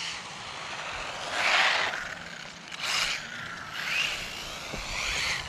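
Electric RC drift truck driving, its motor whining up and down in several bursts of throttle, with tyre and scrape noise; the loudest burst is about a second and a half in.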